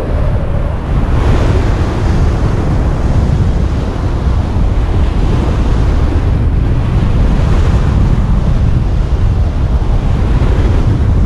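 Wind noise from airflow buffeting a camera microphone during paraglider flight: a loud, steady rush that is heaviest in the low end and swells about a second in and again around seven and a half seconds.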